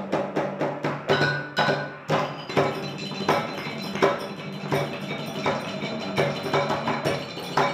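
Homemade one-string bottle instrument: a wooden bow-stick set in a glass bottle resonator, its string struck with a small stick. It plays a rhythmic run of pitched, ringing taps, quick at first and then settling into a steady beat.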